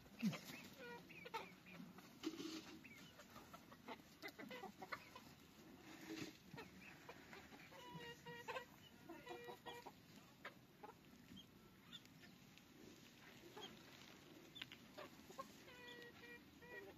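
Chickens clucking faintly in short, repeated calls, mostly in the second half, with scattered light clicks and knocks.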